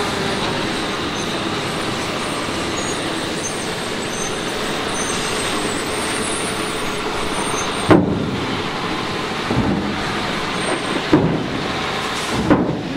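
MAN three-axle dump truck's diesel engine running as the truck drives slowly onto a car ferry, a steady engine and tyre noise. About eight seconds in comes a sharp loud thump, followed by a few smaller thumps near the end.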